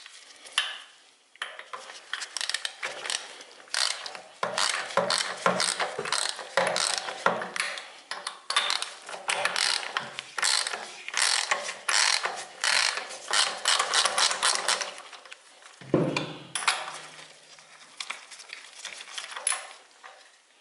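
Socket ratchet wrench clicking in quick runs as a spark plug is unscrewed from an air-cooled twin-cylinder engine's head; the clicking stops about fifteen seconds in.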